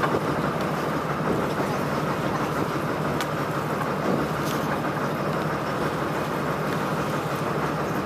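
Fishing boat's engine running steadily under the net hauling, with a low hum, wind and sea noise, and a couple of faint knocks partway through.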